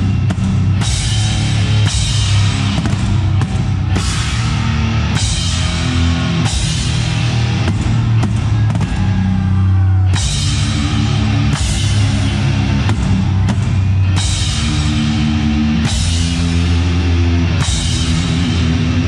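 Heavy metal band playing live, recorded at the drum kit: a Yamaha drum kit with Zildjian crash cymbals struck about once a second over low, sustained bass and guitar notes. A little past halfway the cymbals drop out for a couple of seconds, then the crashes resume.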